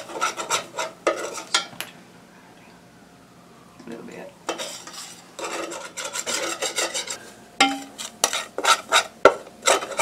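Metal spoon stirring and scraping a browning flour-and-oil roux in a stainless steel saucepan: quick repeated scrapes against the pan, a pause of about two seconds near the start, then the scraping resumes.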